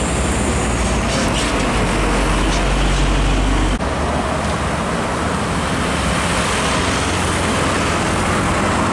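Heavy road traffic: trucks passing close by, their engines and tyres giving a steady rumble, deep and strong in the first few seconds. About four seconds in the sound cuts abruptly to more passing traffic.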